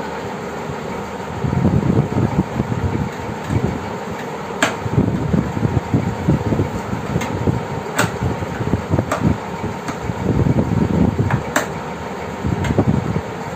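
A hand screwdriver driving a screw through a steel telescopic drawer channel into a laminated board panel. There is irregular low rubbing and grinding, and about five sharp clicks, over a steady fan-like hum.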